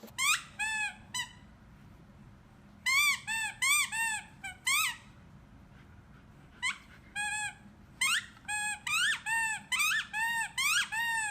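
High, squeaky chirps from a small animal, each rising and falling, given in quick runs of several calls with short pauses between.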